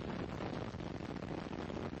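Distant, steady rumbling rush of Space Shuttle Columbia's rocket exhaust during ascent, with its solid rocket boosters and main engines burning, mixed with hiss.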